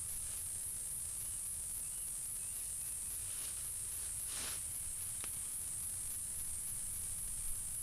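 High-pitched insect chorus, a steady trill pulsing in quick even beats, over a low rumble. A short rustle about halfway through, with a faint click just after.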